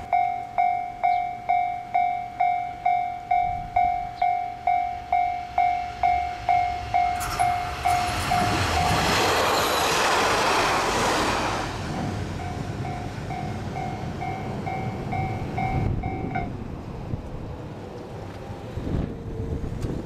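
Level-crossing warning bell ringing its repeated electronic ding about twice a second while a red diesel railcar passes close by, its rail and engine noise loudest from about eight to twelve seconds in. The bell carries on more faintly after the train and stops about sixteen seconds in.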